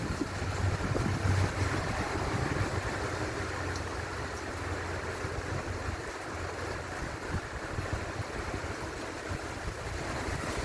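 Steady rain falling, with wind rumbling on the microphone, stronger in the first few seconds.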